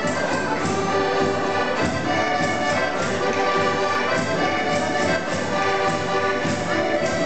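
Live Portuguese folk music played for a chula dance by a rancho folclórico ensemble, a full, steady, lively tune with a regular beat.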